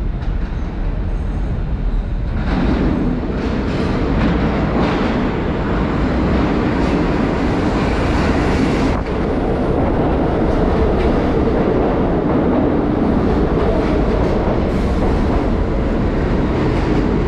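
R46 subway train pulling into an underground station: the rumble and clatter of its wheels on the rails swells about two and a half seconds in and stays loud as the cars run along the platform.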